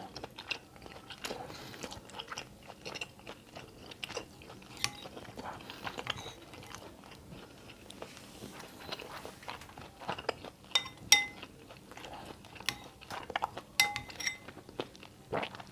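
Close-up eating sounds: soft chewing and mouth noises from someone eating ketupat sayur, with a metal spoon now and then clinking against a glass bowl, a few of the clinks ringing briefly in the second half.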